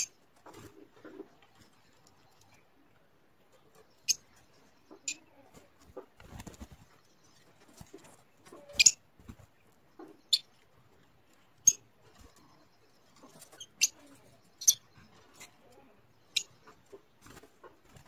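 Peach-faced lovebirds giving short, high-pitched chirps, one every second or two, the loudest about nine seconds in.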